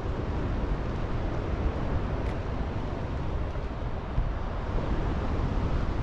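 Wind buffeting the microphone: a steady, uneven low rumble with a hiss above it and no clear tone.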